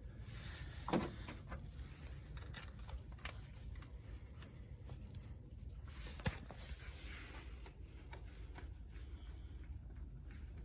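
A few scattered sharp clicks and light knocks of hand tools and parts being handled in a car's engine bay, over a faint low hum; the engine is not running.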